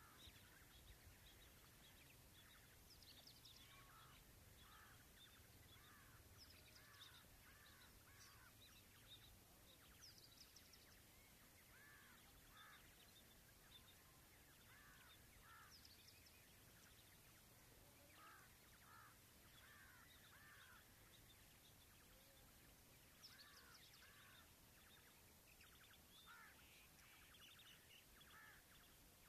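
Female quails calling from their cages: short, soft arched call notes, often in twos or threes, repeated with pauses over a faint background hiss.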